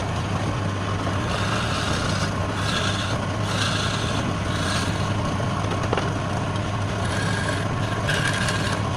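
Wood lathe running with a steady motor hum, while a cutting tool scrapes the spinning wood in several short hissing passes.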